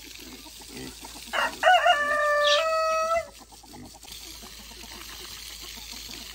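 A rooster crows once, starting about a second and a half in: a stepped cock-a-doodle-doo lasting nearly two seconds, the loudest sound here. Under it and after it, a steady hiss of water spraying from a garden hose onto the ground and the pig.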